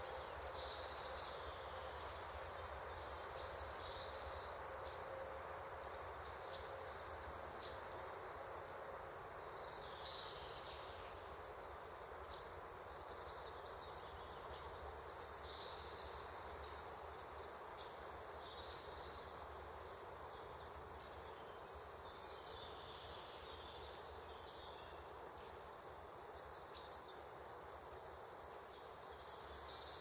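Great spotted woodpecker giving short, sharp, high calls, about six of them at irregular intervals, over a steady background hiss.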